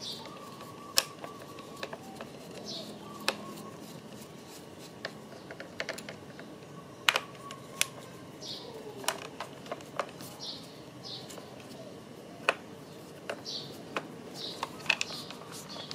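Scattered sharp clicks and taps of a screwdriver on the screws and plastic base plate of a car's power-folding side-mirror motor as the screws are turned.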